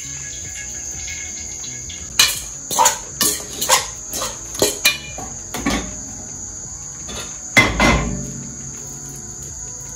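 Crickets trilling steadily at a high pitch, with a run of about ten sharp knocks of kitchenware between about two and six seconds in, and one heavier clatter near eight seconds.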